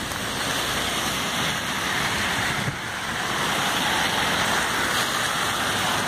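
Rain falling steadily, an even hiss without breaks.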